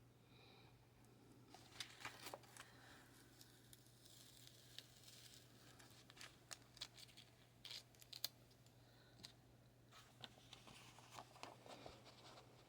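Faint handling of paper and stickers for a collage journal page: scattered rustles, crinkles and small clicks, over a low steady hum.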